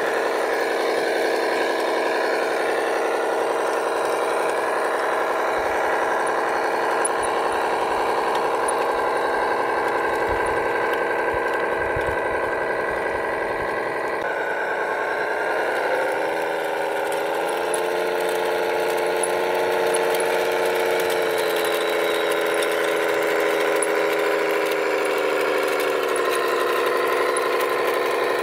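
Radio-controlled hydraulic tipper truck running with a steady whine. The pitch shifts about fourteen seconds in, rises briefly a couple of seconds later, holds, and sinks slightly near the end.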